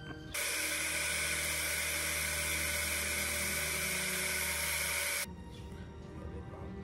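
Handheld electric angle grinder running against a small metal headlight bracket, cleaning up the surface. It starts abruptly, runs steadily for about five seconds, then cuts off suddenly.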